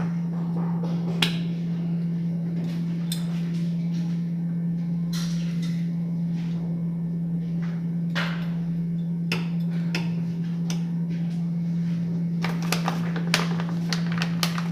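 Scattered sharp clicks and knocks of a garlic press's olive pitter squeezing pits out of olives, several in quick succession near the end, over a steady low hum.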